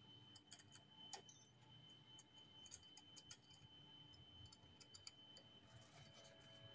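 Faint, scattered metallic clicks and taps of a small L-shaped hex key working the bolts of an aftermarket brake-hose clamp on a motorcycle's front fork, over a faint steady high tone.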